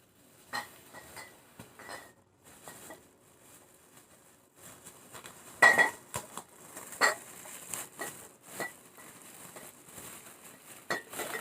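Grocery items being handled and set down: scattered knocks and clinks, loudest about halfway through.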